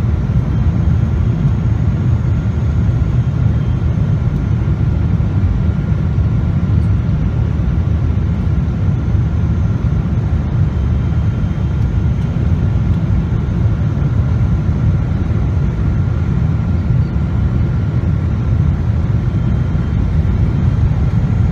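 Airliner cabin noise heard from a window seat on final approach: a steady low rumble of engines and airflow, with a faint steady high whine over it.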